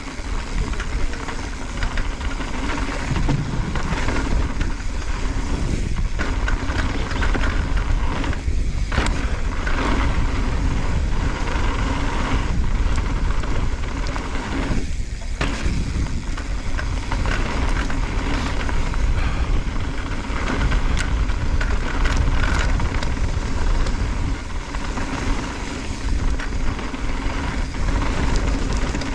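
Mountain bike riding fast down a dirt and loose-gravel trail: steady wind rush on the microphone with tyre noise over stones, and scattered rattles and knocks as the bike hits bumps.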